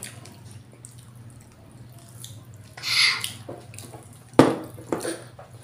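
Wet eating and drinking noises at a meal eaten by hand: faint smacking, a short hissy slurp about halfway through, then a cup set down on the table with a sharp knock, followed by a lighter knock.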